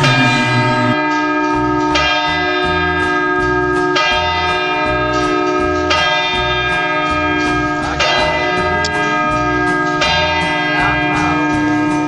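Church bell tolling, struck about every two seconds, each stroke ringing on into the next.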